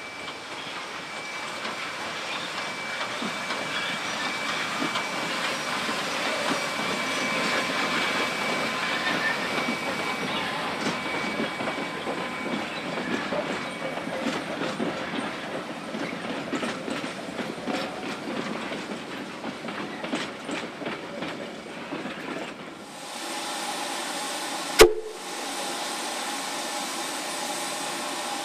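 Steam train running past, with steam hiss and the wheels clicking over the rail joints, growing louder over the first several seconds. About 23 seconds in the sound changes abruptly to a steadier hum with a few steady tones, and one sharp click follows shortly after.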